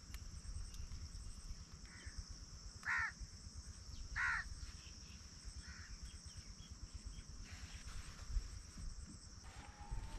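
A bird gives two short calls about a second apart over a steady high insect buzz.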